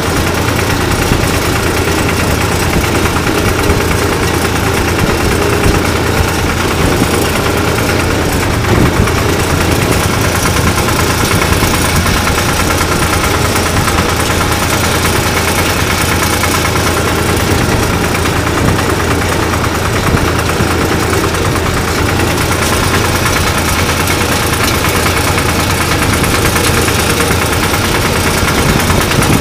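1974 Long 350 tractor's diesel engine running steadily.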